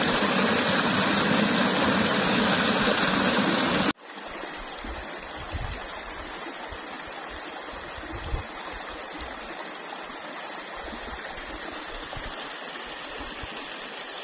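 Hot-spring stream water rushing over rocks in a small cascade, a loud, steady rush. About four seconds in it cuts off abruptly to a much fainter rush of water from a more distant cascade, with some low rumbling underneath.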